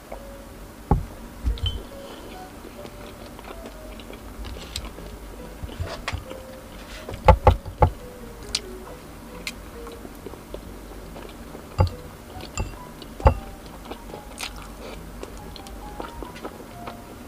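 Close-miked eating: a handful of sharp bites and chewing on skewered street food, the loudest cluster about halfway through, with a thump about a second in, over soft background music.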